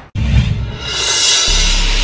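Dramatic music: after a brief drop-out, low hits and a swelling hiss, then a deep steady bass drone comes in about halfway through.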